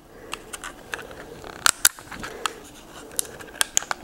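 Packaging being cut and pried apart by hand to free a small piece: scratching and rustling with several sharp snips, the loudest a pair close together a little under two seconds in and two more about three seconds in.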